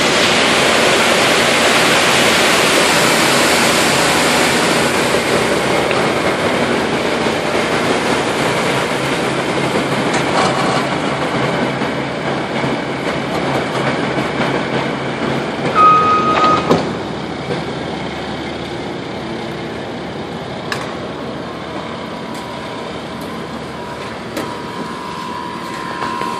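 Heavy truck engine running with a steady noise, and a short high beep a little past halfway.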